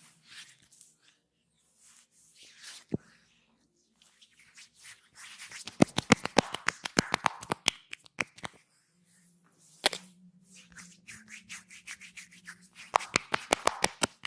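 Masseuse's hands on skin during a massage: soft rubbing strokes, then two quick runs of sharp hand slaps at about ten a second, typical of percussive tapping. A single louder slap comes between the two runs.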